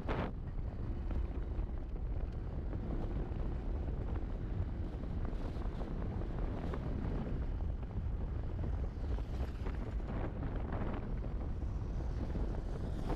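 Wind rumbling steadily on the microphone of a riding motorcyclist, with the small motorcycle's engine and tyres running underneath.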